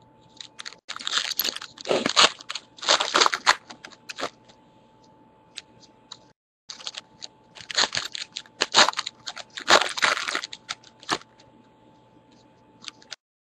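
Crinkling and crunching of trading-card packaging being handled, in irregular bursts, with a brief pause about six seconds in and a quieter stretch near the end.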